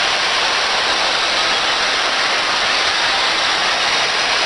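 Steady, loud hiss of background noise with no distinct events: the ambient din of a busy shopping-mall atrium.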